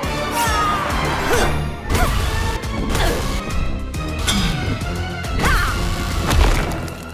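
Background score music with several cartoon whooshes and crashing impacts over it, the sound effects of a magic fight.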